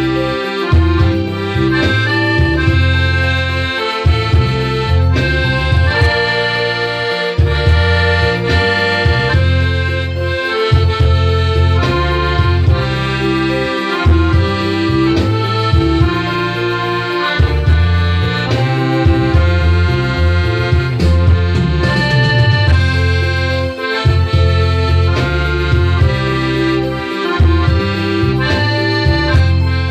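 Hohner piano accordion playing a tune: a melody of held, stepping notes over low bass notes that change every second or two.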